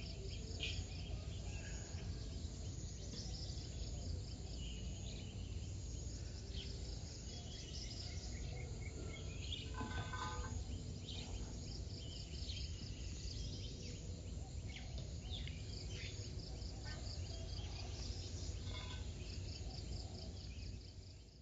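Dawn chorus of birds chirping and calling over a steady pulsing insect trill, with a low rumble underneath. One louder call comes about halfway through, and the sound fades out at the very end.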